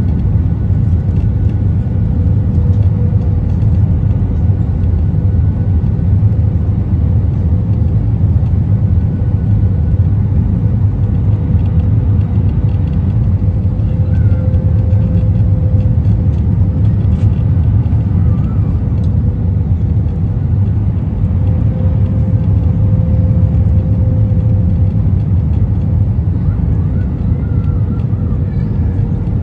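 Airliner cabin noise on final approach, heard from a window seat over the wing with the flaps extended: the steady low rumble of engines and airflow, with a faint steady hum over it.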